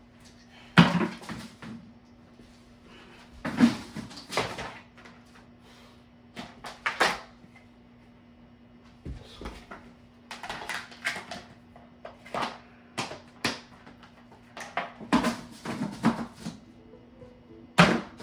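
Irregular knocks and clatters of a small lidded trash can being knocked over, handled and set back upright, with the loudest hits about a second in and near the end. A faint steady hum runs underneath.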